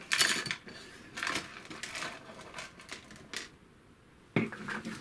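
Small parts, including black FR4 plates, nylon standoffs, nuts and bolts and rubber anti-vibration mounts, tipped out of a plastic parts bin onto a cutting mat. They clatter and rattle at first, then settle with scattered light clicks, and there is a louder knock near the end.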